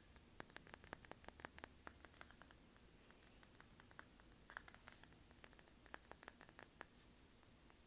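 Faint, light fingers tapping and clicking on small beach trinkets: a quick run of taps over the first couple of seconds, then a few scattered taps later on.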